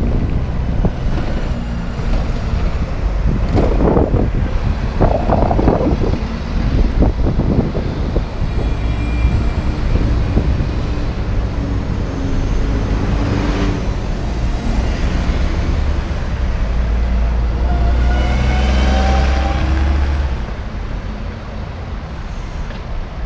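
City buses pulling away and passing through a street junction one after another, engines running over street traffic noise, with gusts of wind on the microphone in the first few seconds. Towards the end one bus accelerates with a heavy low rumble and a rising whine.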